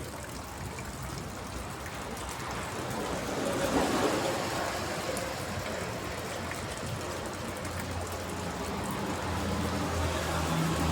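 Rain falling on a water tank: a steady rush and patter of water that swells briefly about four seconds in. A low hum builds up near the end.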